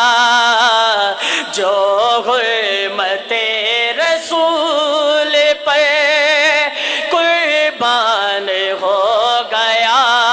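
A man singing a naat, drawing out long held notes with a steady wavering vibrato in an ornamented melodic line, with no instruments heard.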